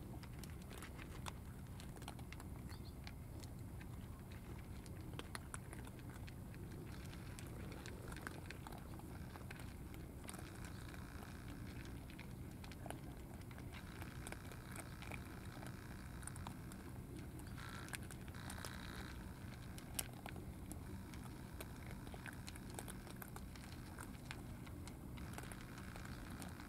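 Cats eating from plastic food trays: faint, irregular clicks of chewing over steady low background noise.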